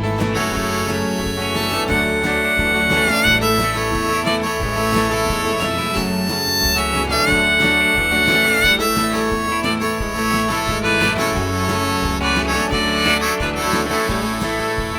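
Instrumental break of a country song: a harmonica solo with bending held notes over acoustic guitar and bass.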